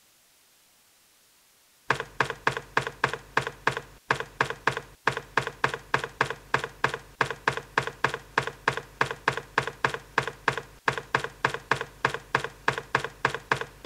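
A single key on a Philips computer keyboard pressed over and over: after near silence, identical sharp clicks start about two seconds in and go on at an even pace of about four a second.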